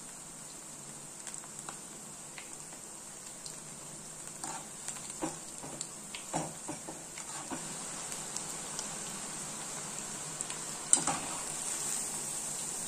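Battered cauliflower florets deep-frying in hot oil in a metal kadai: a steady sizzle with small crackles. From about four seconds in, a metal ladle stirs them, knocking lightly against the pan, and there is a sharper metallic knock near the end as a wire skimmer lifts them.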